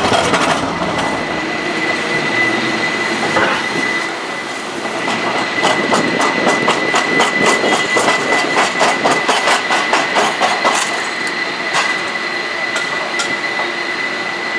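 A Muni rail car running along its track: a steady high whine throughout, and from about five seconds in a quick run of clicks for several seconds as the wheels pass over rail joints.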